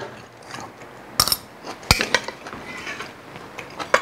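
Metal fork clinking against a bowl several times, sharp clicks about a second in, around two seconds in and again near the end, with soft chewing between.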